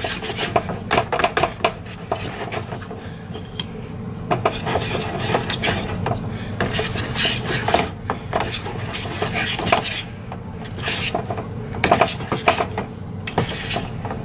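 Wire whisk beating a thick batter in a bowl: a quick, irregular run of clinks and scrapes as the wires strike and drag along the bowl.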